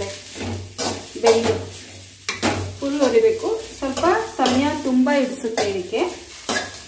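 A metal spoon stirs and scrapes chopped okra roasting in a little oil in a metal pan, over a light sizzle. It makes repeated scraping strokes, and from about two and a half to five and a half seconds in come squeaky, wavering tones of metal rubbing on the pan.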